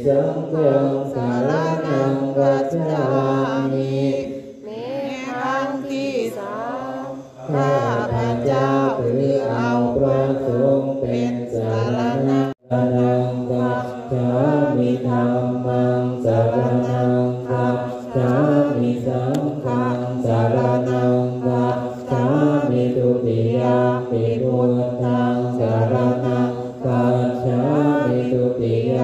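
Group of Thai Buddhist monks chanting the evening chant together in unison, a low recitation held on a near-constant pitch. The sound cuts out for an instant about twelve seconds in.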